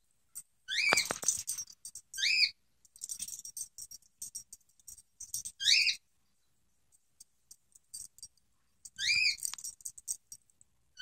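Short, high-pitched squeaks, each rising then falling in pitch, heard four times a few seconds apart, with faint scratchy noise between them.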